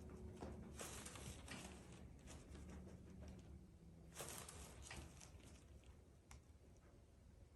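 Near silence: room tone with a low steady hum and a few faint rustles and soft taps.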